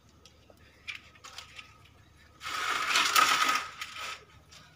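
A burst of rustling, crunching noise lasting just over a second, from hands working at the soil and base of a potted plant, with a few small clicks before it.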